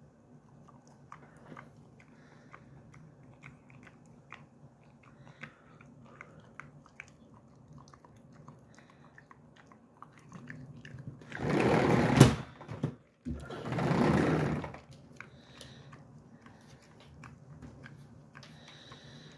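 Faint, irregular chewing clicks and smacks from an old dog's mouth. Twice, about two-thirds of the way through, a loud rough noise lasting about a second covers them.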